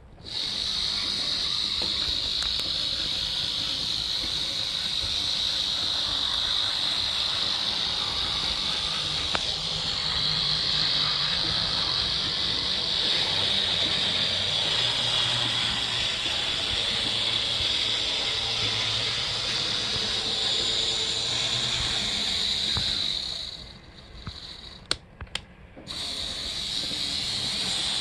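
Micro-Trains Z scale F7 model locomotive running on its track loop: a steady high-pitched whir of the tiny electric motor and gear train with wheels on rail, a smooth runner. About 23 seconds in the whir drops away for about two seconds, with a few light clicks, then starts again.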